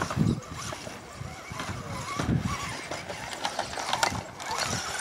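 Radio-controlled trail truck's motor and gears whining faintly, with scattered clicks and knocks as it works over the course.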